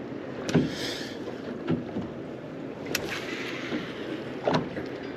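A small fishing boat drifting: a steady wash of water and wind, with four short knocks against the hull and a brief hiss just under a second in.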